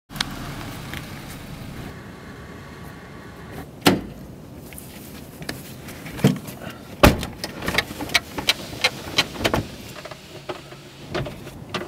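Someone getting into a car's passenger seat: scattered knocks and rustling, a loud thud of the car door shutting about seven seconds in, then a run of short sharp clicks.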